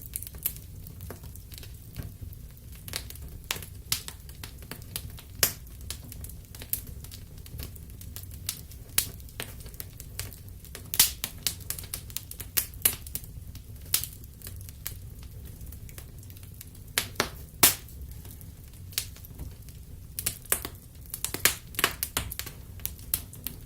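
Wood fire crackling in a fireplace: irregular sharp pops and snaps, several of them loud, over a steady low rumble of flames.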